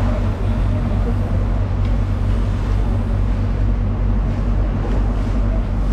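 Steady low mechanical rumble with a constant hum, like an engine or machinery running without pause.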